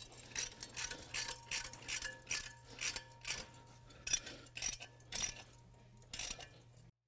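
Socket ratchet clicking in uneven runs as it is swung back and forth to tighten the nut on a wedge anchor through a steel post base, with a faint metallic ring; it cuts off shortly before the end. Tightening the nut draws the anchor's wedge clip up so it grips in the concrete.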